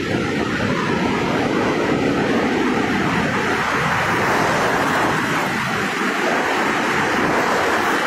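Sea surf washing in the shallows close to the microphone: a steady rush of water, turning to a brighter hiss of churning foam about three seconds in.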